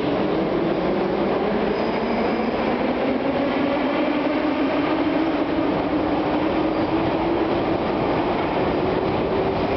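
Metro train running on the track: a steady rumble of wheels and running gear with a whine that slowly rises in pitch.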